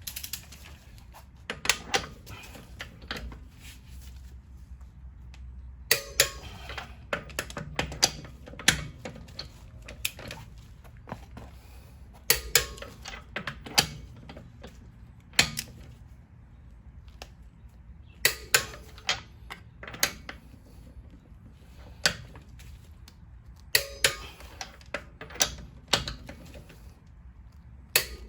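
Wrench clicking on the wheel's lug bolts in short groups of sharp metallic clicks about every five or six seconds, as the bolts are tightened down one after another.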